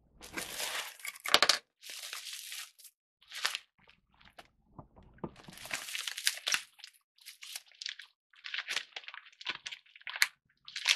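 Plastic bubble wrap rustling and crinkling as it is handled and unwrapped by hand, in irregular bursts with a short lull about four seconds in.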